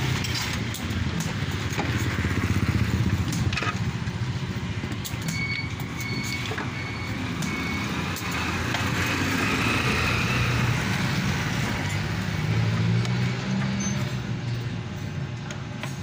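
Steady low rumble of a running vehicle engine, with a few light clicks of a circuit board and cables being handled, and a short run of brief high beeps about five to eight seconds in.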